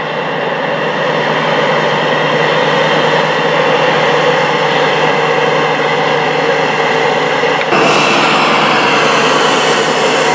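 NSW 81 class diesel-electric locomotive 8175, leading a consist of 48 class locomotives, running through the yard toward and under the footbridge with a loud, steady engine drone. About three-quarters of the way through, the sound steps suddenly louder and brighter as the locomotive passes directly below.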